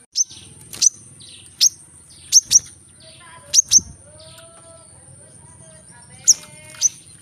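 Brown-throated sunbird (kolibri kelapa) calling: a run of sharp, very high notes that slur downward, several in quick pairs, with a pause of about two seconds before a final pair.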